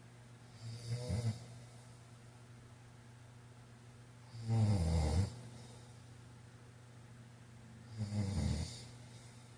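A man snoring: three low snores about three and a half seconds apart, the middle one the loudest, over a steady low hum.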